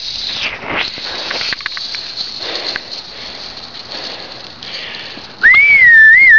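Soft rustling and scuffing steps over dry grass, then near the end a loud, wavering whistle from a person calling the puppies. The whistle rises, wobbles up and down in pitch and stops abruptly after about a second.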